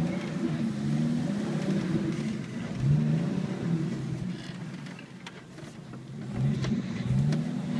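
Off-road vehicle's engine running at low speed on a dirt trail, revving up twice: the pitch rises about three seconds in and again near the end, with a quieter stretch between.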